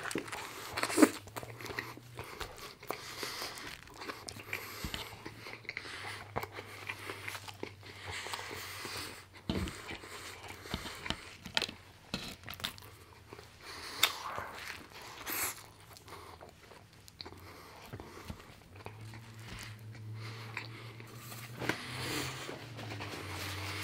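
Close-miked eating: a bite into a McDonald's grilled chicken burger, loudest about a second in, then continued chewing with small crunches and clicks.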